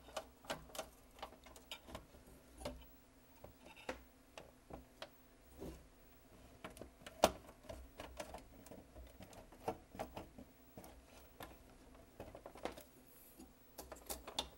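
Irregular clicks and knocks of the Sylvania SV2000 VCR/DVD combo's internal parts as the assembly is worked and pried loose by hand, still catching on something inside the chassis. One sharper knock comes about seven seconds in.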